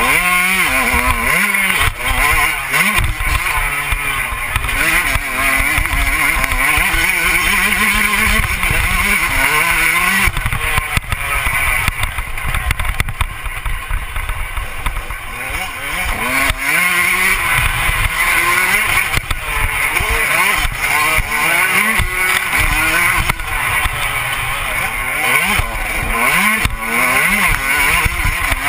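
Motocross bike engine revving up and down, its pitch repeatedly rising and falling with throttle and gear changes as it rides over a dirt track. A heavy rumble of wind buffets the on-bike camera's microphone.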